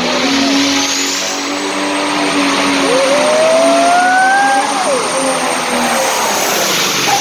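Turbocharged diesel engine of a hot farm pulling tractor running hard at full throttle during a pull, loud and steady, with a high turbo whine through most of it and a tone that rises and then drops about halfway through.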